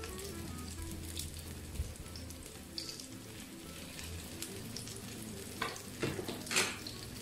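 Aloo tikkis shallow-frying in a little oil in a nonstick pan, sizzling steadily. Near the end come a few short scrapes and knocks as a spatula sets another tikki in the pan and the pan is handled.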